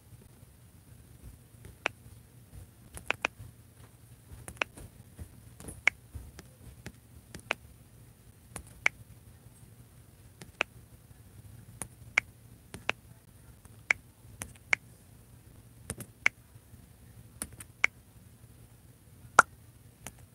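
Sharp, irregular clicks about once a second from tapping out a text message on a smartphone.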